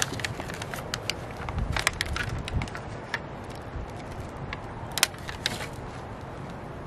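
Thin plastic nursery pots crackling and clicking as flower seedlings are handled and worked out of them, in short irregular bursts, with a low wind rumble on the microphone.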